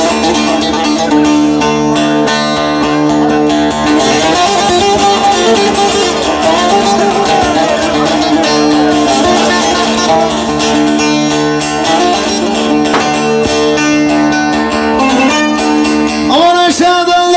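Bağlama (long-necked Turkish saz) played fast with a plectrum in an instrumental interlude, over steady held notes underneath. A man's singing voice comes in near the end.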